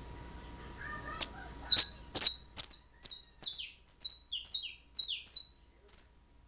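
A pet canary chirping: a run of about a dozen sharp, high notes, each falling in pitch, nearly three a second, starting about a second in and stopping near the end.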